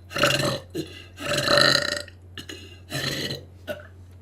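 A woman burping: three loud burps in a row, the middle one the longest and loudest.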